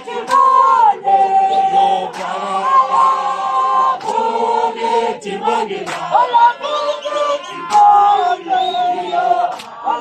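A group of people singing together without instruments, mostly men's voices, holding long notes in a chant-like song.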